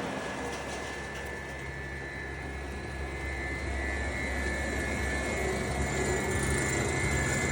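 Disc wood chipper running steadily with nothing being fed: a low drone with a thin, steady high whine over it, slowly growing a little louder.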